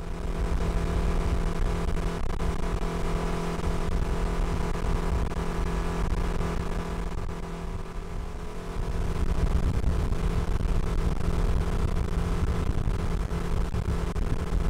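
Motorboat engine running steadily at speed, with the rush of water and wind under it; it dips slightly about halfway through, then picks up again.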